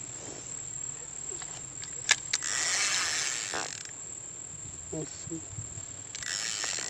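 Steady high-pitched insect drone from the reeds. About two seconds in there are two sharp clicks, then a mechanical whirring lasting over a second, and a shorter whir near the end.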